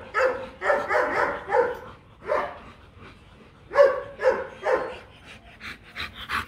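Rottweiler giving short yelping, whining calls in clusters: several in the first two seconds, a pause, then another run about four seconds in.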